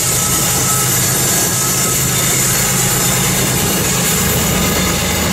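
A GE AC4400CW diesel locomotive working as a distributed power unit passes, its engine running with a steady low drone over the rumble and hiss of freight-car wheels on the rails.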